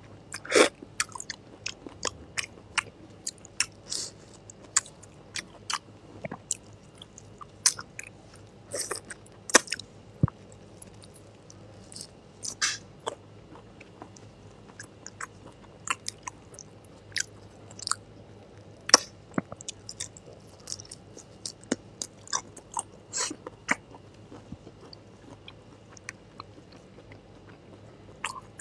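Close-miked eating of raw marinated shrimp: wet chewing and smacking with sharp, irregular crunches and clicks as the firm, crisp raw shrimp meat is bitten.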